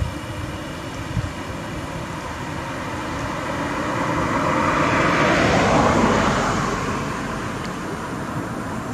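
A vehicle passing by: a rushing road noise that swells to a peak about halfway through, then fades back to a steady background hum.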